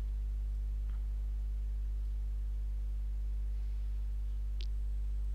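Steady low electrical mains hum from the recording setup, with a faint click about four and a half seconds in.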